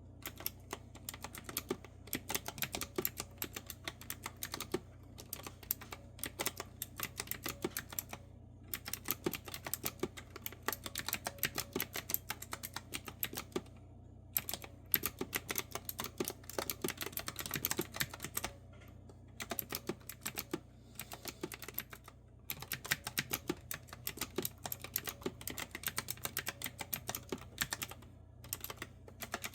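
Clicky retro-style keyboard with round keycaps being typed on: quick runs of sharp key clicks, broken by short pauses.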